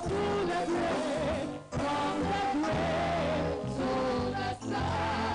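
Church worship music: a hymn sung with wavering, held notes over a steady bass accompaniment.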